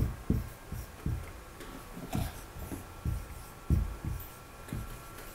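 Whiteboard marker writing on a whiteboard: soft, irregular knocks as the tip meets the board, about two a second, with faint scratching between them.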